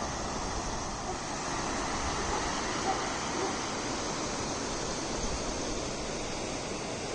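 River water rushing over rocks and shallow rapids, a steady, even noise.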